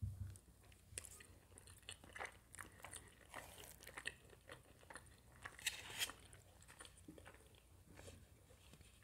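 Close-miked chewing of a mouthful of pasta: faint, scattered wet mouth clicks and smacks, with a few louder ones now and then.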